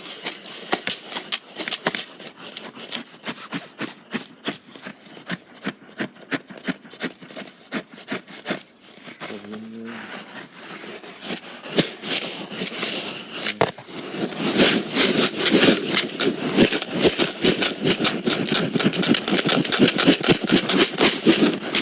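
Long screwdriver chipping and scraping at built-up ice, a quick run of short strikes that grows louder and denser about two-thirds of the way through.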